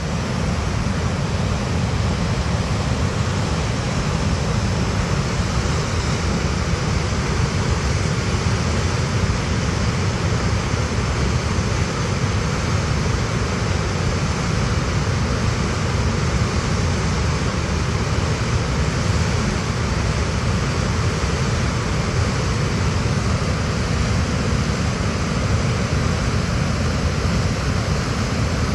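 Loud, steady rushing of a big whitewater rapid pouring down a steep granite slide.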